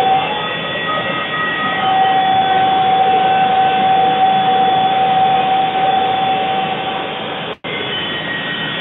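Kubota BX23S compact tractor's diesel engine and front-mounted snowblower running under load, heard from inside the tractor's cab: a steady drone with a high whine held over it. The sound cuts out for an instant near the end.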